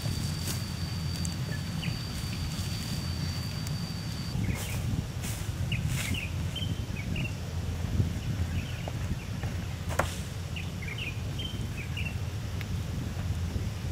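Woodland birds chirping over a low steady rumble, with a thin steady high whine that stops about four seconds in. A few sharp snaps, as of footsteps and twigs on dry leaf litter, come at intervals.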